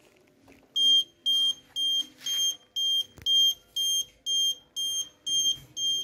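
12 V buzzer of a homemade vibration-sensor motorcycle alarm beeping in a steady pattern, about two high-pitched beeps a second, starting about a second in after the seat is touched: the vibration sensor has tripped the alarm.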